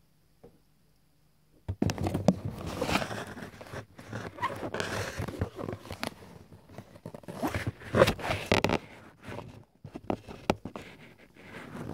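Irregular rustling and crinkling of a cardboard box and paper leaflet being handled close to the microphone, starting after about a second and a half of near silence.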